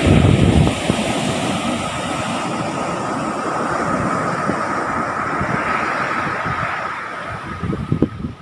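Ocean surf washing in steady and swelling about midway, with wind buffeting the microphone in the first second.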